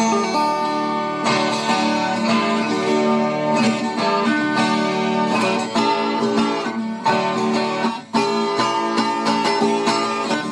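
Instrumental moda de viola music: a viola caipira (Brazilian ten-string folk guitar) plays a lively plucked rhythm, with a brief break about eight seconds in.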